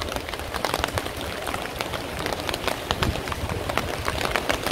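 Autumn rain falling steadily, with many separate close raindrops striking a surface in a dense, irregular patter over a steady rain hiss.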